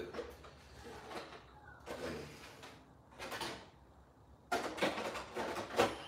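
Hard plastic RC monster-truck body shells being lifted off and set down onto chassis: light scrapes and knocks, then a louder run of plastic knocking and scraping from about four and a half seconds in.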